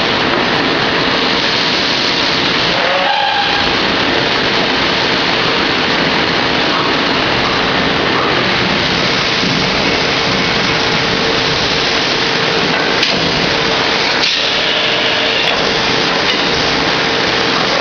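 Machine tool running while machining a part: a loud, steady noise with a constant hum running through it.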